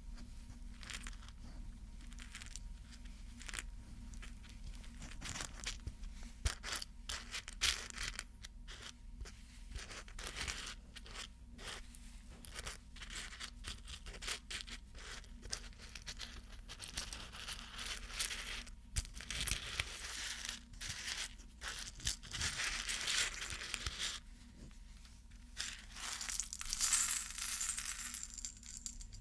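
Close-miked handling of small objects: many light taps and clicks, with stretches of scratching or rustling in the middle and again near the end.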